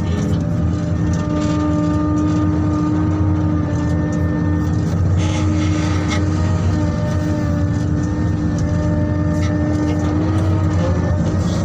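Heavy diesel engines of mining machinery, a Liebherr R9100 excavator and an LGMG CMT106 dump truck, running steadily with a low, even drone. There is a brief burst of noisier sound about halfway through.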